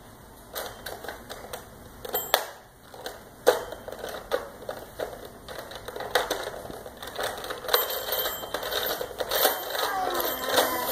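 Plastic toy rotary telephone being handled by babies: irregular clicks and knocks as its dial is turned and the toy is pushed and banged on the floor, with a faint high ringing in the second half.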